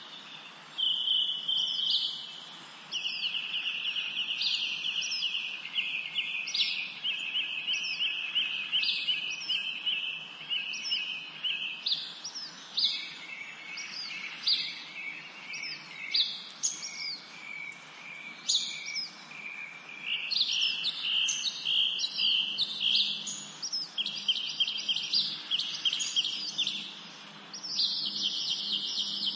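Birds chirping continuously: rapid, high-pitched chirps and short trills, repeating with brief lulls.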